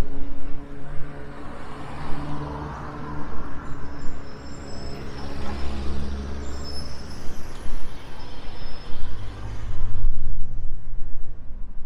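Street traffic: a large vehicle's engine running close by, with a loud hiss about two to four seconds in.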